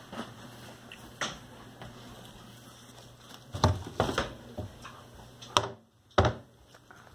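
A few separate short knocks and taps of handling in a small room, with a brief drop to near silence just before the last knock.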